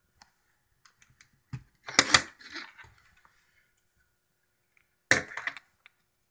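Small plastic pin header clicking and rattling as it is handled and plugged into a solderless breadboard. There are two short bursts of clicks, about two seconds in and again about five seconds in.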